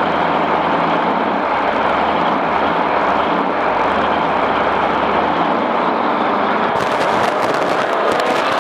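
A vehicle driving at speed, a steady loud rush of engine, road and wind noise; about seven seconds in, a rapid crackle of clicks joins it.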